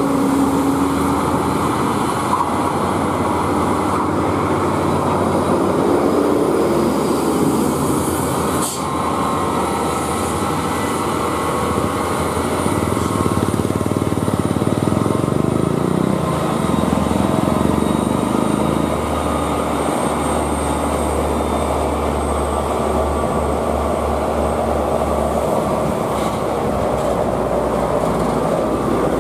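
Diesel engines of loaded UD Quester trucks labouring steadily as the trucks crawl up a steep grade under a load of steel rebar. A faint high whine runs over the engine note.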